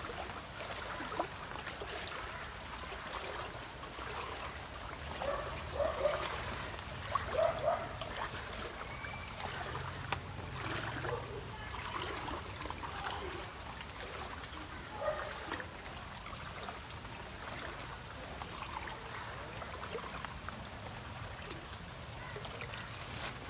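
Shallow floodwater sloshing and splashing around the legs of people wading through it, over a steady trickle of flowing water. A few louder splashes come about a third of the way in.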